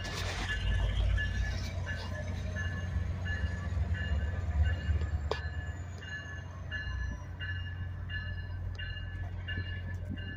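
Diesel locomotive hauling a passenger train on a slow approach, its engine running with a low rumble that is loudest about halfway through and then eases. A high ringing tone repeats steadily over it.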